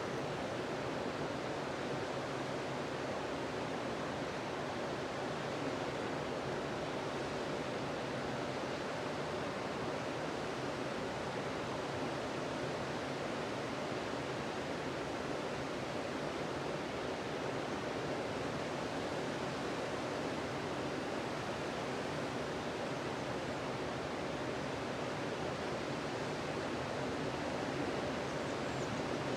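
Sea surf breaking on a beach, a steady even rush of noise with no single wave standing out.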